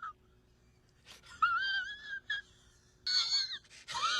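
Dog whining in high, wavering cries: a bout from about a second in, then another starting about three seconds in.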